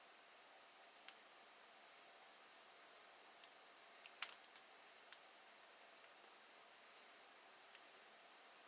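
Faint, scattered small metallic clicks of a lock pick working the pin stack inside an American Lock 1305 six-pin padlock, with a sharper cluster of clicks about four seconds in.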